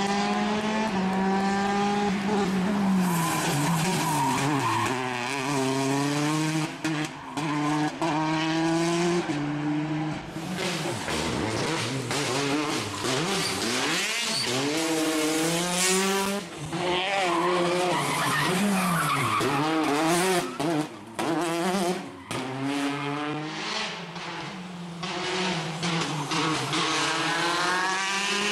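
Peugeot 208 T16 R5 rally car's turbocharged 1.6-litre four-cylinder engine at full stage pace, its pitch climbing and dropping again and again through gear changes and lifts, with several short sharp cracks.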